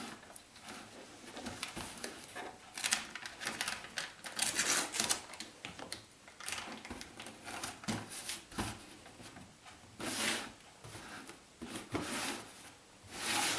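Cardboard boxes being handled and joined with masking tape: irregular rustling, scraping and tapping of cardboard, with a few short rasping pulls of tape off the roll.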